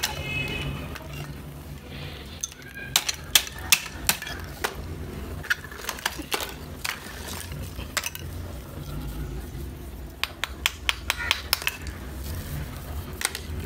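Brittle slabs of roasted multani mitti (fuller's earth clay) clinking and cracking as they are handled and tapped with a small hammer: sharp, irregular clicks, some in quick clusters.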